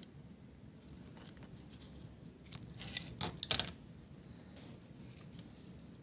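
Small tools and parts being handled on a workbench: a cluster of sharp clicks and snips about three seconds in, with a few fainter clicks around them.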